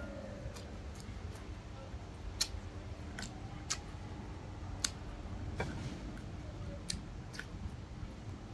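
Eating sounds: about seven short, sharp clicks and crunches at irregular intervals as pieces are picked from a plate of ice and sliced vegetables and bitten, over a faint low hum.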